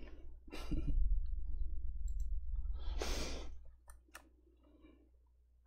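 A breathy exhale or sigh close to the microphone about three seconds in, followed by two sharp clicks, over a low hum that fades out near four seconds.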